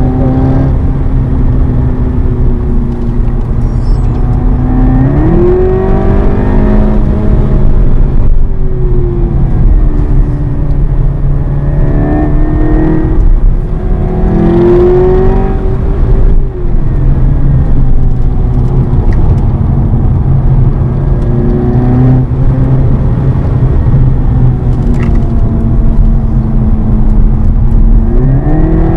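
Seat Leon Cupra 280's turbocharged 2.0-litre four-cylinder engine heard from inside the cabin under hard driving, its note climbing and dropping several times as the car accelerates and slows for corners, over a steady low road rumble.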